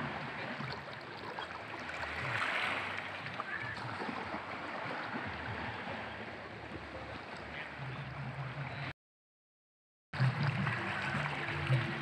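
Small waves on a calm sea lapping and gurgling among shoreline rocks: a steady wash with little splashes. The sound cuts out completely for about a second, about nine seconds in.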